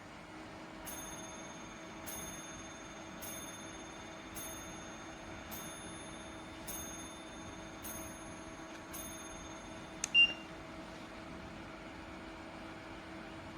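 Ceramic fan heater running, its fan giving a steady whoosh with a low hum. About eight faint high pings come roughly once a second, and a single sharp beep sounds about ten seconds in.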